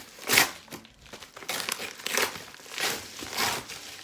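Product packaging crinkling and rustling as it is opened by hand, in about five short bursts.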